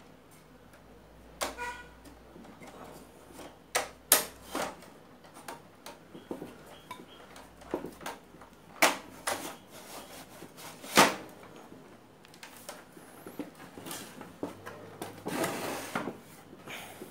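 Hands handling the plastic cabinet and chassis board of an opened CRT television: irregular knocks and clicks of plastic and metal parts, with a longer scraping rub near the end.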